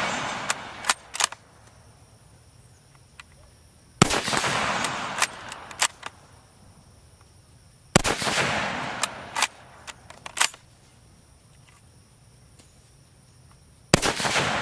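Carcano M41 bolt-action rifle in 6.5×52mm firing three shots, the last one near the end, each shot echoing for over a second. Each shot is followed by a few sharp metallic clicks as the bolt is worked.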